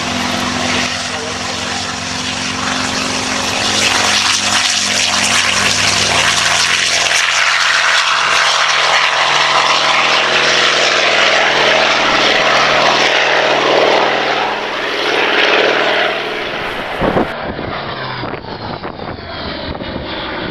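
Hawker Sea Fury T.20's Bristol Centaur 18-cylinder radial engine at high power during takeoff, growing louder over the first few seconds and dropping away after about sixteen seconds. There is a brief thump near the end.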